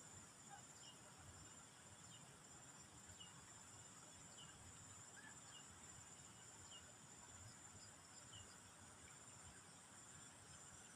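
Near silence with a faint, steady high-pitched insect drone, crickets, and small chirps about once a second.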